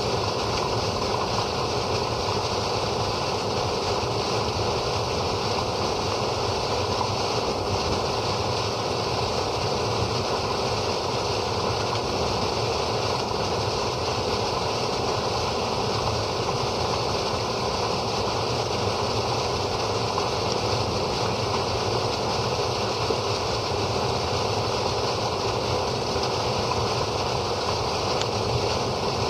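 Steady rush of water pouring from a discharge pipe and splashing onto the ground, part of an iron bacteria flush.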